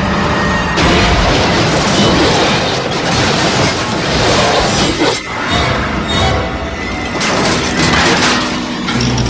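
A Ferrari Testarossa smashing into a truck as a film sound effect: a crash about a second in, then glass shattering and metal crashing, with music over it.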